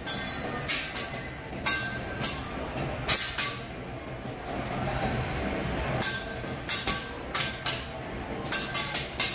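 Steel teppanyaki spatula and fork clanged together and against the griddle in quick runs of ringing metallic clinks, with a pause of about two seconds near the middle.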